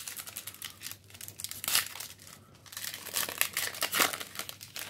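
Foil wrapper of a 2021 Score football card pack crinkling and tearing as it is pulled open by hand. The crackling comes in uneven spells, loudest about two seconds in and again from about three to four seconds in.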